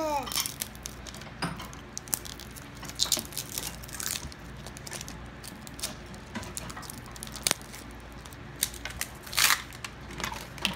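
Plastic wrapper being peeled and torn by hand off a Mini Brands capsule ball: irregular crinkling and crackling with sharp plastic clicks, and a louder crackle about nine and a half seconds in.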